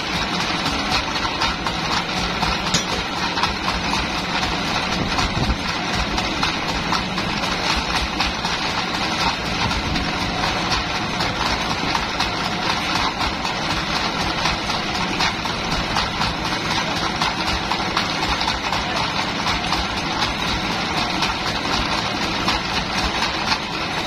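Band sawmill machinery running steadily, a continuous dense mechanical drone with no separate knocks or pauses.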